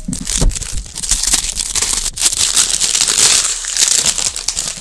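Loud, continuous crinkling and tearing of the wrapping on a cardboard perfume box as it is unwrapped by hand, in dense crackles close to the microphone.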